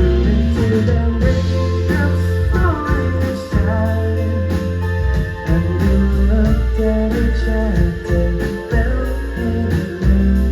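A band playing a song with a singer, guitar and a strong bass line.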